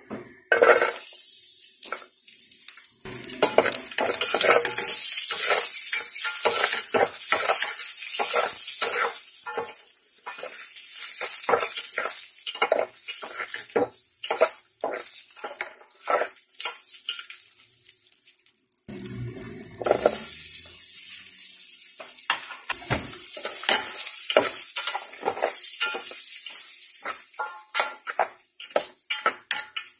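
Garlic sizzling in hot oil in a metal pot while a spatula scrapes and taps the pot bottom as it is stirred; this is the sautéing of aromatics. The sizzle briefly dies down about two-thirds of the way through, then picks up again.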